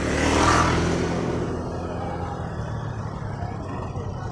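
A motor vehicle's engine running close by, swelling loudest about half a second in as it revs or passes, then settling to a steady low hum.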